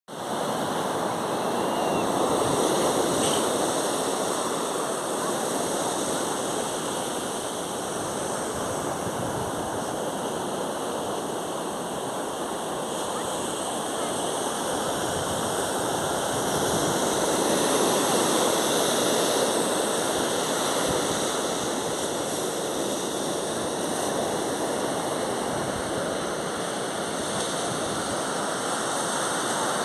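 Surf washing on a beach: a continuous rushing noise that swells and eases over several seconds, with a faint steady high hiss above it.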